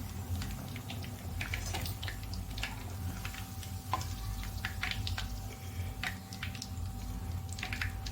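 Chana dal vadas frying in hot oil: irregular crackling and popping of the oil over a low steady hum.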